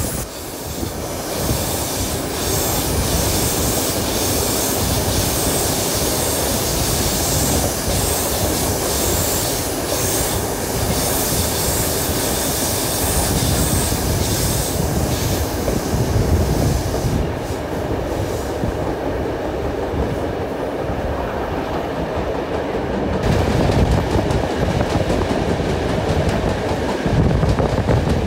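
Train carriages rolling along the track, heard from a carriage window: a steady rumble of wheels on rail under a high hiss. The hiss drops away for a few seconds past the middle, then returns.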